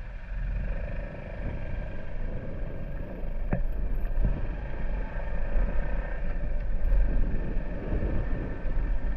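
Small motorcycle engine running, with a steady low wind rumble on the microphone and a sharp knock about three and a half seconds in.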